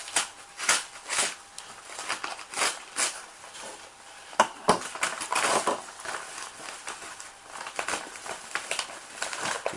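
Padded paper mailer being slit and torn open with a folding knife, in a series of short rips, then the plastic and bubble wrap inside crinkling as it is pulled out. Two sharp clicks come about halfway.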